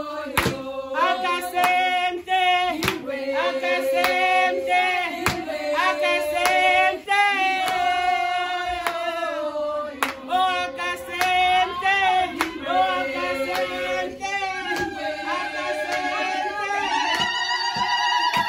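A group of women singing together, with one woman leading the song on a handheld microphone and the others joining in.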